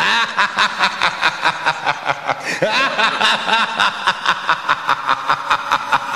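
Background music: an upbeat dance track starting up, with a fast, steady beat of about four to five pulses a second.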